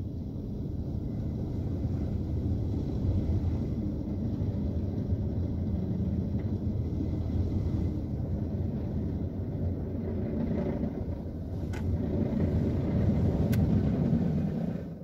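Mark VII ChoiceWash XT rollover car wash working over the car during the foam stage, heard from inside the cabin as a steady low rumble that swells near the end and then fades out.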